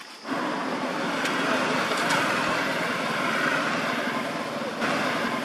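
Motorbikes passing close by on a road: steady engine and tyre noise that starts abruptly just after the start.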